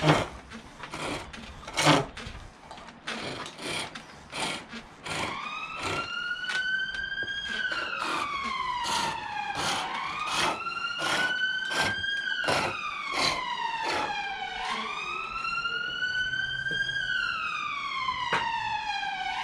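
Emergency vehicle siren wailing, its pitch slowly rising and falling about every four to five seconds, starting about five seconds in and becoming the loudest sound. Under it, the sharp knocks and cutting strokes of a foot-powered pole lathe turning green silver birch, which stop about two-thirds of the way through.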